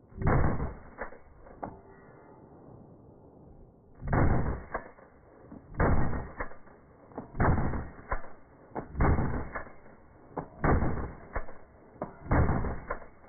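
AR-15 rifle firing seven shots: one, then after about four seconds a steady string of six, roughly one every second and a half.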